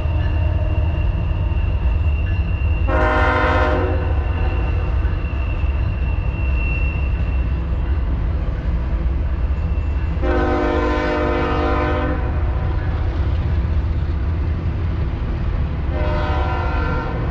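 Double-stack container freight train passing with a steady low rumble, its multi-note air horn sounding three times: a short blast about three seconds in, a longer blast of nearly two seconds about ten seconds in, and a third starting near the end.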